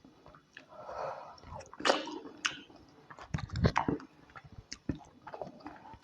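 Close-miked eating: wet chewing and squishing of fish in pepper soup and soft starch, with irregular mouth clicks and smacks.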